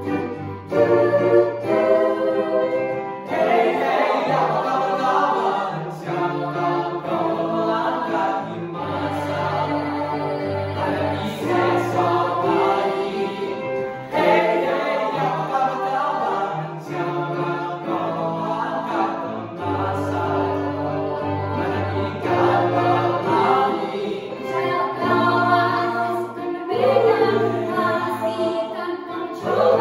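A mixed youth choir of boys and girls singing in harmony, with a steady low bass line held under the voices and changing note every second or two.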